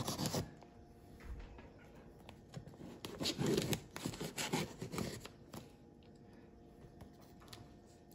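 Folding knife slitting open a cardboard shipping box: scraping and rustling of the blade through tape and cardboard, loudest a few seconds in, with a few sharp clicks.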